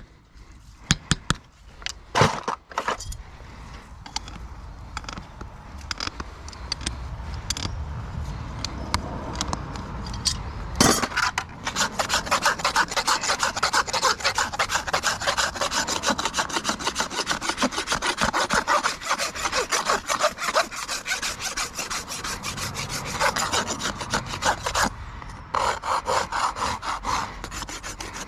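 Farrier's rasp worked rapidly back and forth over a horse's hoof, a dense scraping that starts about ten seconds in after a few scattered sharp taps, breaks off briefly near the end and resumes.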